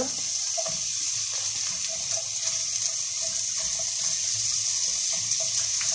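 Chopped red onion sizzling steadily in a hot non-stick frying pan as a spatula stirs it.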